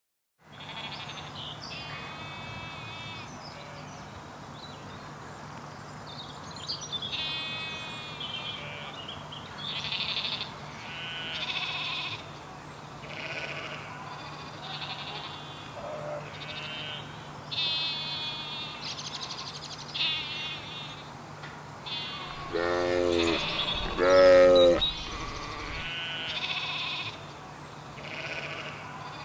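A flock of sheep bleating: many short, higher-pitched bleats overlap throughout, and two loud, deeper bleats come close together near the end.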